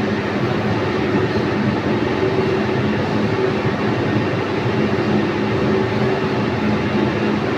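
Steady background rumble and hiss with a faint low hum underneath, unchanging throughout.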